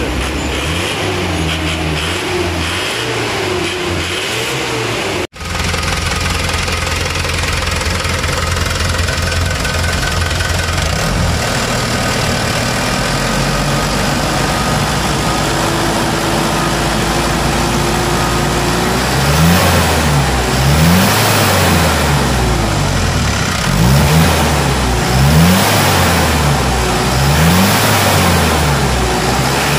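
A Hino Dutro's four-cylinder diesel engine running just after its injection pump's fuel and air settings have been adjusted. It idles steadily, with a short dropout about five seconds in. From about two-thirds of the way through it is revved over and over, rising and falling about every second and a half.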